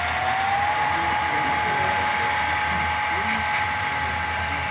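HO-scale Canadian National model diesel locomotives running along the yard track, with a whine that rises in pitch during the first second and then holds steady, over a low mechanical hum.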